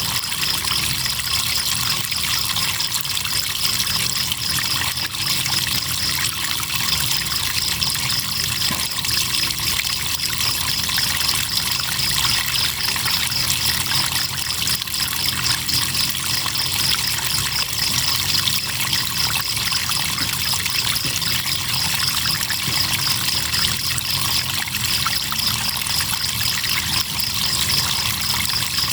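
Crickets chirping in a steady, high pulsing trill over the trickling of river water.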